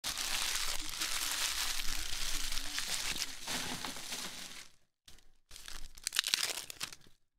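Trading card pack wrappers crinkling and tearing as packs are ripped open: a continuous crackle for about five seconds, then two shorter bursts.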